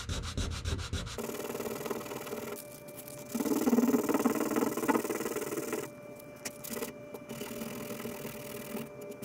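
Sandpaper (320 grit) rubbed by hand over hardened Bondo body-filler patches on a wood veneer dresser top: quick, even back-and-forth strokes for about the first second, then a steadier rubbing over a faint hum, loudest in the middle.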